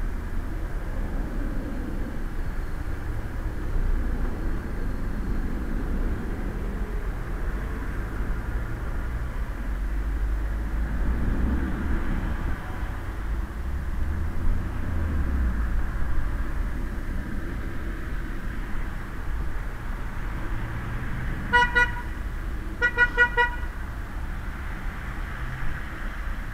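Steady low rumble and hiss from inside a hooded Quest velomobile rolling on a wet road in traffic. Near the end a vehicle horn gives two short toots about a second and a half apart.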